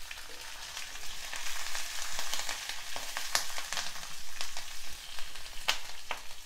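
Fresh green chillies and curry leaves sizzling in hot oil in a stainless steel kadai, with sharp crackling pops, as a wooden spatula stirs the tempering of peanuts, dals and mustard seeds.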